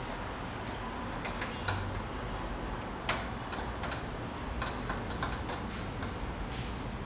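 Irregular light clicks and ticks, a second or less apart, with a louder one about three seconds in, over a steady low hum.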